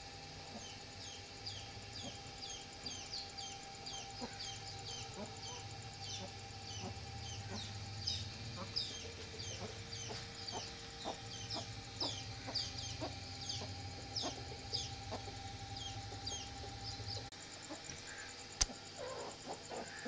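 Buff heavy-breed hens clucking, with a steady run of short, high, falling peeping chirps, two or three a second, over a low hum. The hum stops near the end, and a single sharp click follows.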